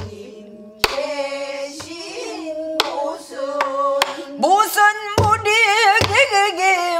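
Pansori singing: a woman's voice holding long, wavering notes, accompanied by several sharp strokes on a buk barrel drum, the voice growing stronger in the second half.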